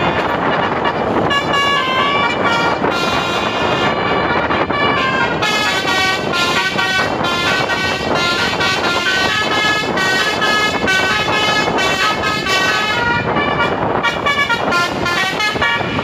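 Basuri telolet multi-tone air horn on a tour bus playing a fast melody, its notes changing several times a second without a break, over the bus's engine and road noise.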